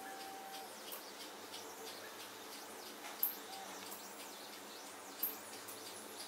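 The stepper motors of a small pen-plotter label printer whining as they move the pen across a roll of masking tape and turn the roll, their thin whine gliding up and down in pitch as the strokes change. Two brief, louder high chirps come about three and five seconds in.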